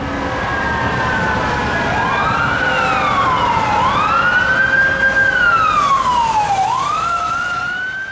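Electronic emergency-vehicle siren wailing in slow rising and falling sweeps, starting about two seconds in, over a steady traffic rumble. It begins to fade out at the very end.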